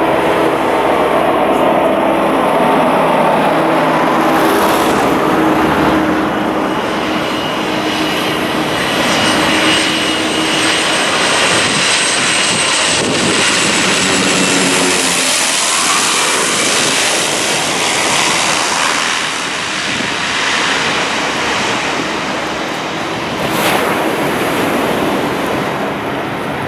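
De Havilland Canada DHC-6 Twin Otter's twin PT6A turboprops droning with propeller hum as it flies in low and lands. The pitch falls about halfway through as it passes overhead.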